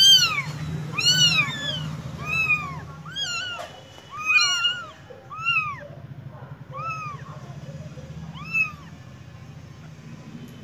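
Young kittens mewing: high, arching cries that rise and fall in pitch, about one a second, becoming sparser toward the end.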